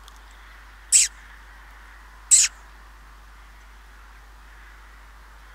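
Two short, high-pitched squeaks about a second and a half apart, made by a hunter to get a rabbit to raise its head up out of the grass for a shot.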